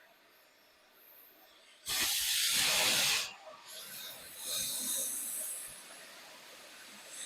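Oxy-acetylene torch hissing: a loud rush of gas and flame that starts abruptly about two seconds in and lasts about a second and a half, then a quieter, higher hiss about five seconds in.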